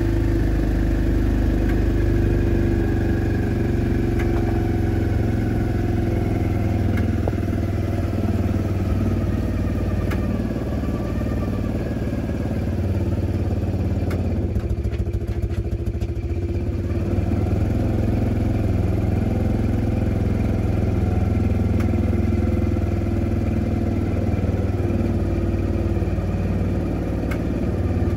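Small single-cylinder air-cooled gasoline engine of a long-tail boat motor running steadily while the boat is under way.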